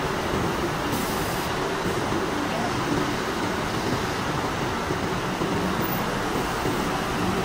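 Steady, unbroken din of cotton mill machinery running, a dense mechanical hum and rush with no distinct strokes or changes.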